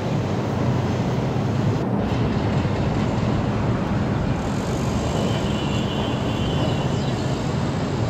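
Steady low rumble of outdoor urban background noise, with a faint high trill about halfway through.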